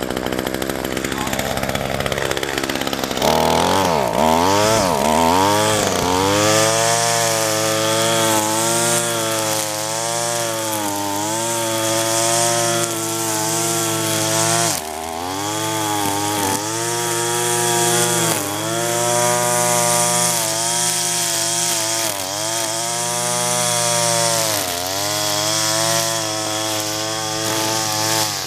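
Gas string trimmer (weed eater) engine running, low for the first few seconds, then revved up and down over and over, the revs sweeping up and falling back every second or two.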